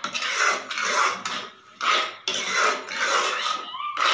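A metal spoon scraping and stirring grated carrots in an aluminium kadhai, in a run of repeated strokes, while the sugar is mixed into the gajar ka halwa.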